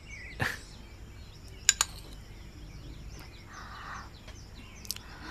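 Quiet ambience with faint birds chirping, two light clicks just under two seconds in, then a soft sip from a ceramic spoon about three and a half seconds in.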